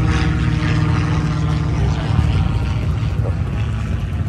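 A vehicle engine running steadily nearby, a constant low drone with no revving.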